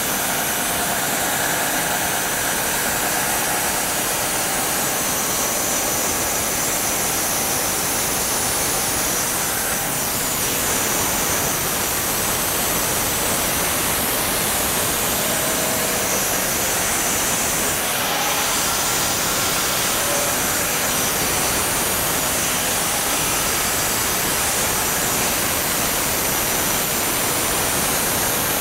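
Homemade band sawmill running, its blade sawing steadily through a spruce log as the saw head moves along it.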